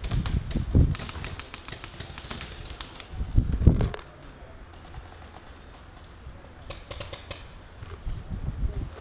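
Paintball markers firing: quick strings of sharp pops in the first second or so and again around seven seconds in. Low rumbling thumps on the microphone come and go, the loudest a little over three seconds in.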